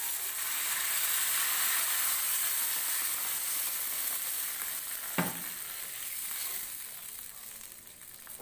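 Water poured into a hot wok of frying chicken and potatoes, sizzling and hissing loudly, then dying down over the last couple of seconds. A single knock about five seconds in.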